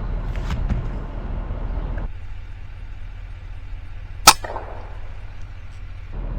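A single shot from an FX Impact M3 .22-calibre PCP air rifle about four seconds in: one sharp crack with a short tail, over a steady low background rumble.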